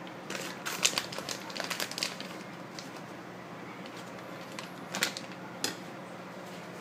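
Pieces of dried, vinegared miyako kombu being handled and piled by hand on a plastic cutting board: a run of light, crinkly clicks and rustles in the first two seconds, quieter handling after, then a couple of sharper clicks about five seconds in.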